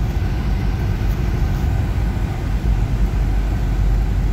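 Road noise heard from inside a moving car's cabin: a steady low rumble of engine and tyres.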